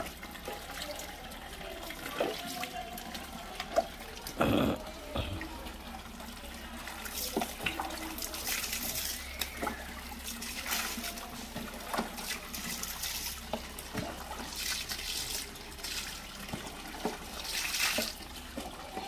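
Water splashing as it is scooped with a plastic mug from a bucket and poured over a wet pug, whose fur is rubbed by hand; the splashing comes in several spells a few seconds apart. A short dull knock sounds about four and a half seconds in.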